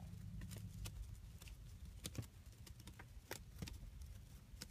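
Faint handling noise: scattered light clicks and taps over a low hum that fades out about two seconds in.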